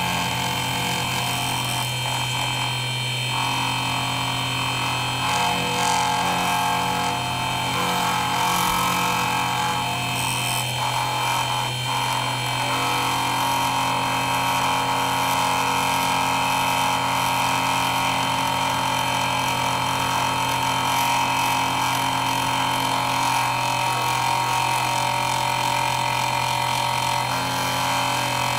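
Milling machine running steadily, its motor humming and the end mill cutting metal; the tone shifts slightly a few times as the cut goes on.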